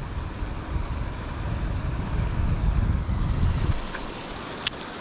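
Low rumble of wind buffeting the microphone, which stops abruptly near the end, followed by a single sharp click.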